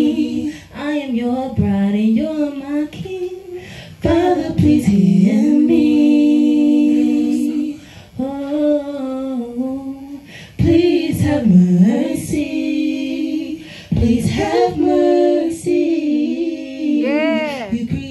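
Two women singing together into microphones, a slow song with long held notes and wavering vibrato.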